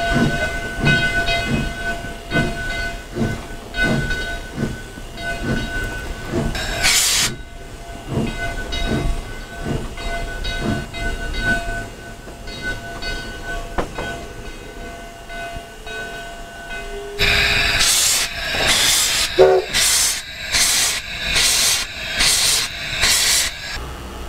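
Cab sound of the Virginia & Truckee #29 oil-fired steam locomotive under way: exhaust chuffs at about two a second over a steady high whine, with a short burst of hiss about seven seconds in. About seventeen seconds in, the chuffs turn into loud hissing blasts of steam in the same rhythm.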